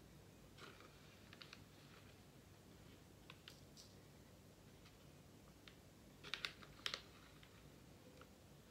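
Faint scattered light clicks and taps of a metal spatula against a small pouch as powder is scooped out onto weighing paper, with a cluster of sharper clicks about six to seven seconds in.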